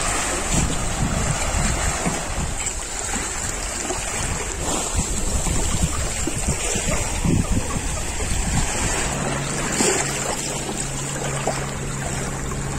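Small waves lapping on a sandy beach, with wind gusting on the microphone. A steady low hum comes in about nine seconds in and holds to the end.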